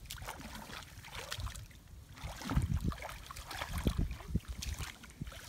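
Feet wading through shallow muddy paddy water, sloshing and squelching in an irregular run of low, muffled splashes, with a couple of louder ones about two and a half and four seconds in.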